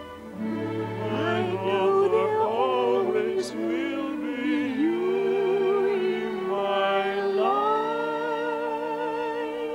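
Slow orchestral ballad music: a melody in long held notes with strong vibrato, sliding up into a high sustained note about two thirds of the way through.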